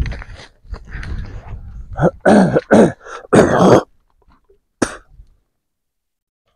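A man clearing his throat and coughing several times, loudest in the middle. A single sharp click follows near the end.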